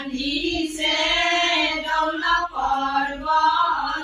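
Women singing an Assamese biya naam (traditional wedding song): one slow melodic line with long held notes.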